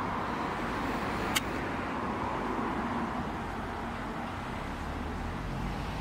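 Steady hiss of road traffic, with one short click about a second and a half in.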